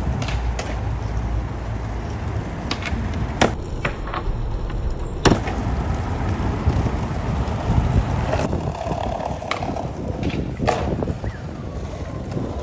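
Skateboard wheels rolling on pavement in a steady rumble, broken by several sharp clacks of the board hitting the ground, the loudest two a couple of seconds apart near the middle.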